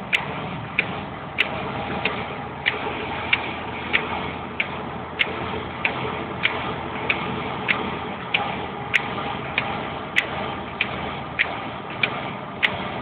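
Sharp, evenly spaced clicking inside a moving car's cabin, about three clicks every two seconds, over steady road noise.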